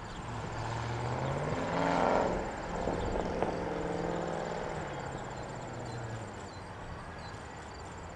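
A vehicle passing close by, its engine hum swelling to a peak about two seconds in and fading away by about six seconds, over crickets chirping steadily.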